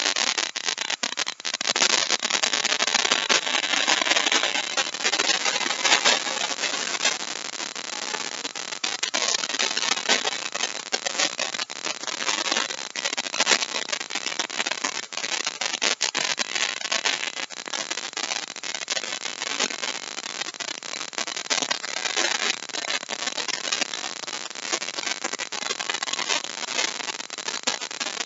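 Compact router running continuously as its bit cuts a deep mortise in a wooden chair part, the cutting noise rough and uneven, loudest in the first few seconds.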